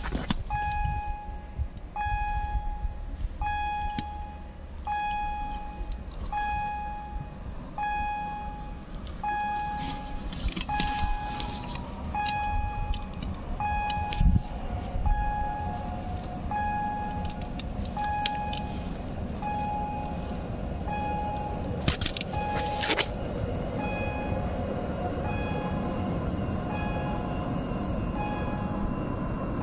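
An electronic warning signal beeps steadily, about once every second and a half, while a Pesa Elf electric multiple unit approaches and pulls into the platform, its rumble growing over the last several seconds.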